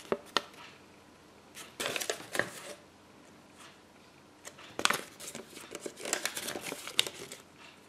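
Thin paper instruction leaflet from a Kinder Surprise egg rustling and crinkling as it is unfolded and turned over in the hands. The sound comes in several short bursts with a few sharp clicks.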